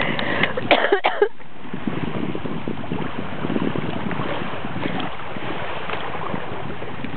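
Steady outdoor noise of wind on the microphone and sea water lapping among shoreline rocks, with a few spoken words in the first second.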